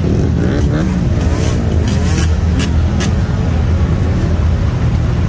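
Motorcycle engine running loudly at close range, revved so its pitch rises and falls in the first two seconds, with several sharp cracks over the first three seconds.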